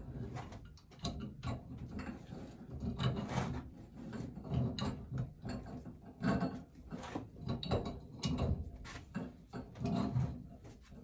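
Pipe wrench turning a threaded steam-pipe nipple into its fitting. The threads and wrench jaws give a series of irregular creaks and clicks, about one every second, as the joint is cranked tight.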